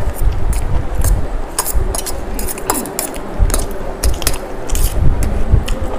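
People eating chow mein: forks clicking and scraping on a steel plate amid chewing, with many quick sharp clicks and low thumps close to the microphone.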